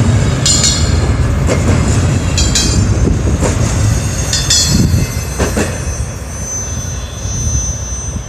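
Double-stack intermodal freight cars rolling past with a heavy low rumble. Wheels squeal about every two seconds, with sharp knocks from wheels over the rail in between. The sound drops off about five seconds in as the end of the train passes and moves away.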